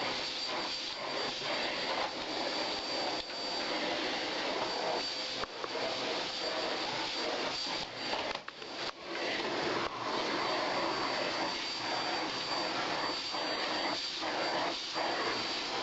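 Vacuum cleaner running steadily, with a thin high whine over its motor noise. The sound dips briefly about eight and a half seconds in.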